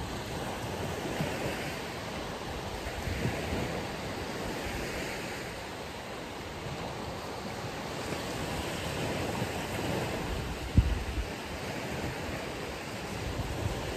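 Ocean waves washing onto a beach, a steady surf that swells and ebbs, with wind on the microphone. A brief low thump comes about eleven seconds in.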